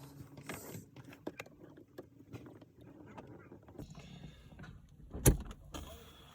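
Hand tools working a cotter pin out of the shift cable linkage: small scattered metal clicks and scrapes, with one sharp knock a little over five seconds in.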